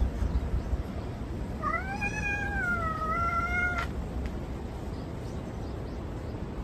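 A domestic cat giving one long meow of about two seconds, rising a little in pitch, then levelling off before it stops abruptly.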